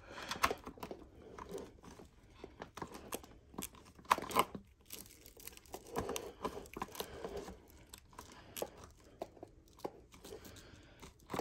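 Packaging crinkling and tearing as a vacuum cleaner's hose is unwrapped, with scattered clicks and knocks of handling; the sharpest knock comes about four seconds in.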